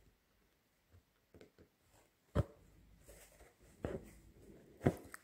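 Needle and thread worked through cotton fabric stretched taut on an embroidery hoop: three sharp taps about a second apart as the needle punches through, with a scratchy rasp of thread being drawn through the cloth between them.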